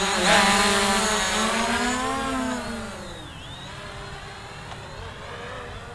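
Hubsan Zino quadcopter's propellers whining as it flies away, the pitch swelling and dipping with the stick inputs. It grows fainter about three seconds in as the drone gets farther off.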